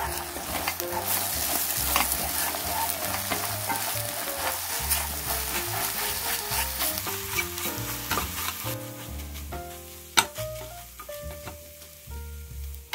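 Beaten eggs sizzling in a hot nonstick frying pan while a silicone spatula stirs and scrapes them into curds. The sizzle dies down about nine seconds in, the heat having been turned off, and a single sharp click follows about a second later.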